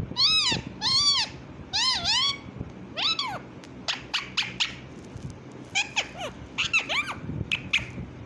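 Pet parrot calling: three drawn-out arched calls in the first two seconds, then clusters of short, sharp chirps from about four seconds in.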